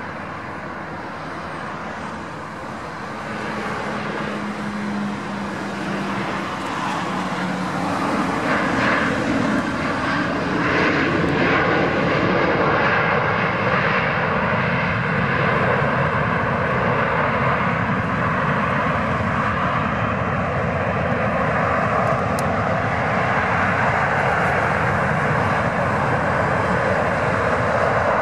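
Boeing 737-800 BBJ2's jet engines during landing and rollout: a steady jet rumble at touchdown that grows louder and rougher several seconds in and stays loud while the airliner slows on the runway.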